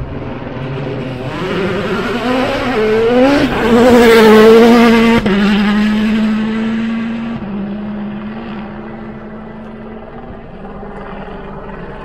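Rally car's turbocharged four-cylinder engine at full throttle passing on a gravel special stage. The engine note climbs and revs through the gears, is loudest about four to five seconds in, drops suddenly, then fades as the car goes away.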